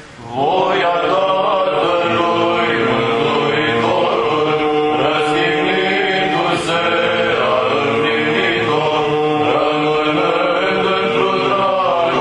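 Orthodox Byzantine-style chant: voices sing a slowly moving melody over a steady held drone note (ison). The singing resumes just after a brief pause at the start.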